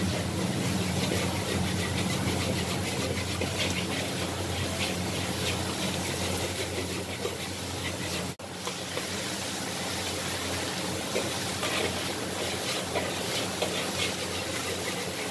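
Kwetiau stir-frying in a wok over a gas wok burner: the steady rush of the burner under sizzling, with a metal spatula scraping and clinking against the wok. The sound drops out for an instant a little past halfway.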